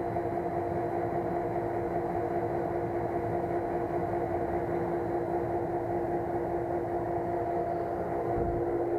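Small Lochinvar gas pool heater running just after ignition, its combustion blower fan and burner making a steady hum with a strong even tone. A brief low rumble comes near the end.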